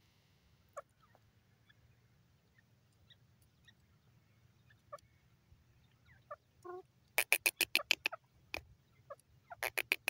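Female gray francolin calling: a few soft, scattered notes, then about seven seconds in a fast run of loud, sharp notes, about ten a second, and another such burst starting near the end.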